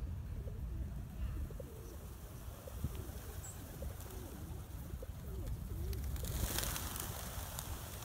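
A flock of feral pigeons cooing, with repeated low, rising-and-falling coos. About six and a half seconds in there is a loud flurry of flapping wings as birds take off.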